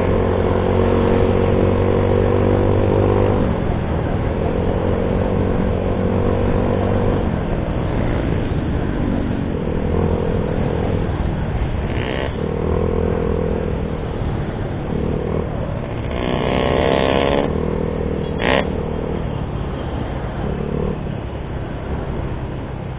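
Motorcycle engine running under way, with wind and road noise from riding. The engine note holds steady for a few seconds at a time and then shifts as the throttle changes. A short sharp sound comes about eighteen seconds in.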